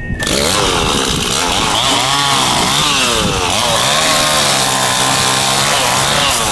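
Two-stroke chainsaw cutting wood. It comes in suddenly, and its engine pitch dips under load and recovers several times.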